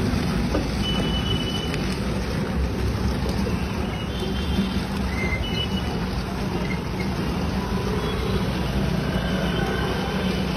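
Steady low rumble with a hiss over it, with a few faint short high tones now and then.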